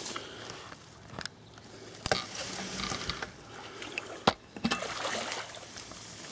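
Water splashing and sloshing at the lake's edge from a hooked carp being played close in, with a few sharp clicks.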